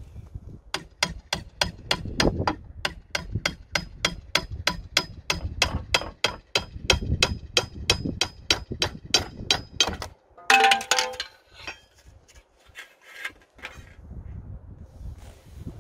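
A hammer tapping rapidly and evenly on the wooden roof-support post, about four sharp metallic strikes a second for some nine seconds. About ten seconds in there is a brief ringing clang of metal, followed by a few scattered knocks.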